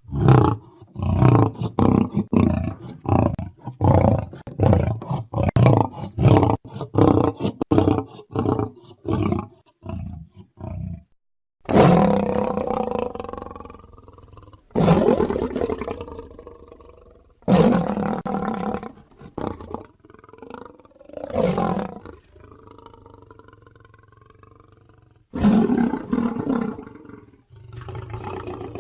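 Carcharodontosaurus sound effects: a quick run of short growling calls, about two a second, for roughly the first ten seconds. Then come several long roars of two to three seconds each, with short pauses between them.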